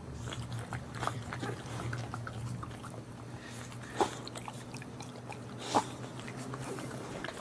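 Boxer mother dog licking her newborn puppies: soft wet licking and mouth sounds, with two sharper smacks about four and six seconds in, over a steady low hum.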